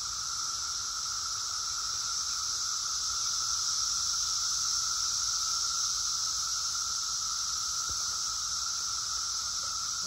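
Chorus of Brood X 17-year periodical cicadas: a steady, high-pitched drone that swells slightly and eases again.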